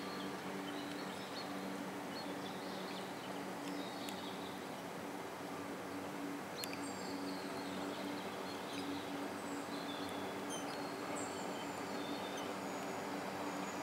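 Outdoor ambience by a lake: birds chirping now and then over a steady low hum and a faint even hiss.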